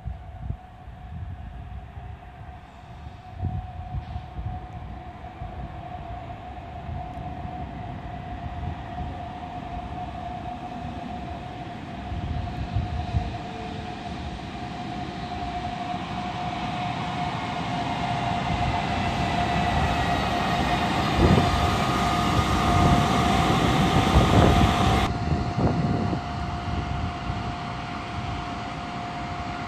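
EU44 (Siemens Taurus) electric locomotive hauling passenger coaches, arriving through the station and slowing. Its noise builds, with falling whines and a high hiss that are loudest about twenty seconds in and cut off sharply about twenty-five seconds in, along with a few heavy knocks. A steady high-pitched tone sounds throughout.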